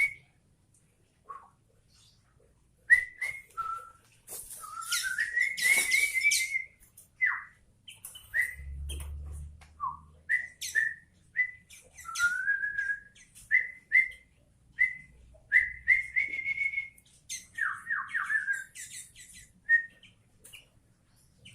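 Sooty-headed bulbul singing: a string of short clear whistled notes, some sliding down, with quick rising runs of notes about a quarter of the way in and again past the middle.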